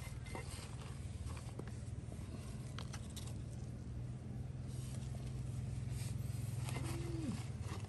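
A steady low hum under faint scattered rustles and small clicks of hands handling a plastic bag, a cutting and loose soil. A short tone drops in pitch near the end.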